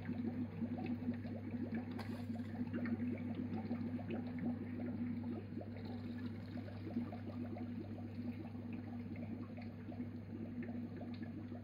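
Water gurgling and crackling as it flows into the clear filter housings of a reverse osmosis system during its flush cycle, over a steady low hum. There is no real pressure yet because the booster pump is not running.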